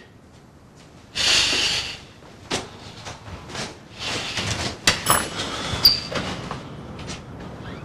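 A short loud rushing hiss about a second in, then scattered knocks and clatter of a door and of someone moving through a room, with a brief high ring a little after the middle.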